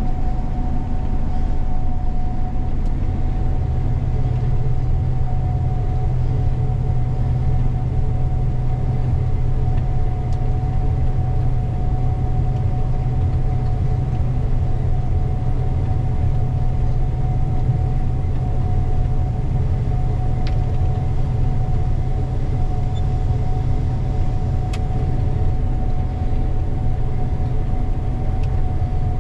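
Gleaner combine running steadily while harvesting soybeans, heard from inside the cab: a heavy, even low drone with a constant whine above it.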